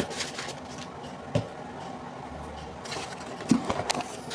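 A few light knocks and clicks of kitchen containers being handled, one about a second in and a small cluster near the end, while salt is added to the blender.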